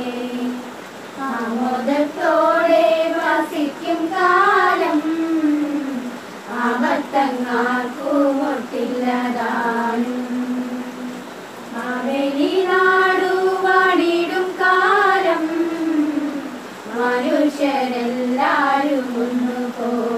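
A small group of women and girls singing an Onam song together in Malayalam. They sing in phrases of long held notes, with short pauses between the phrases.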